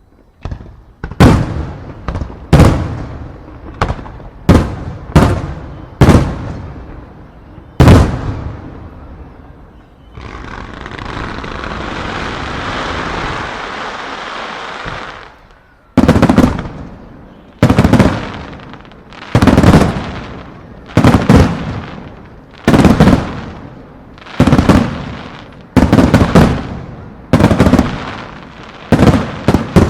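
Aerial firework shells bursting in quick succession, each a sharp boom with a trailing echo. About ten seconds in, the booms give way to roughly five seconds of steady hissing crackle, and then the bursts resume at an even pace of about one every second and a half.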